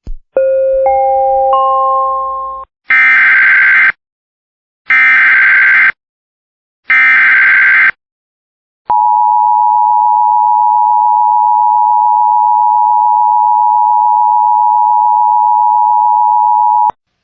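Emergency Alert System activation. A short chime of three rising notes, then three one-second bursts of SAME header data bleeps, then the steady two-tone attention signal held for about eight seconds, announcing a flash flood warning.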